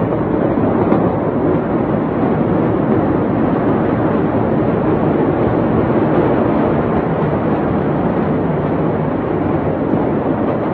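Loud, steady rushing noise with no distinct bangs, heard through a phone's microphone.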